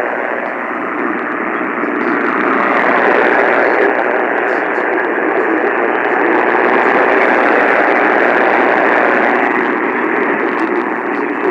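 Loud, steady static hiss on a weak weather radio broadcast signal, with no clear voice coming through.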